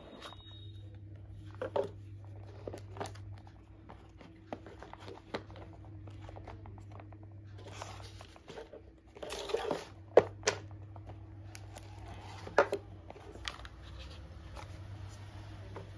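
Paperboard box and packaging being handled while a smartwatch is unboxed: rustling, scraping and a few sharp knocks as the box is opened and the watch tray and strap are lifted out, the loudest knocks about two, ten and twelve and a half seconds in. A steady low hum runs underneath.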